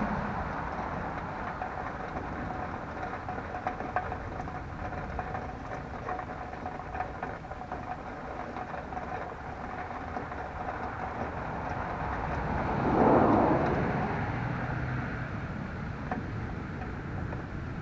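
Steady outdoor background noise with a passing vehicle that swells and fades about thirteen seconds in.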